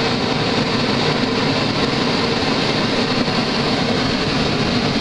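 Two homemade venturi-type propane forge burners, each with a MIG-tip gas jet and an open air intake, test-firing side by side: a steady, even rush of gas and flame.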